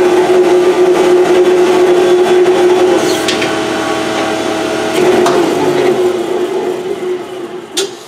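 Rikon 12-210H helical-head jointer/planer's motor and cutterhead running with a steady hum, switched off about five seconds in and winding down, with a few sharp clicks near the end.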